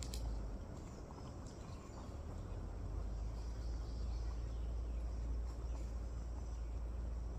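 Outdoor background noise: a steady low rumble with faint high-pitched chirps or ticks, and a few light clicks near the start.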